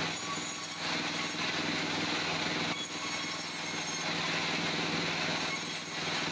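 Wood-Mizer band sawmill running, its band blade cutting through a log over a steady engine hum. The high hiss changes abruptly several times.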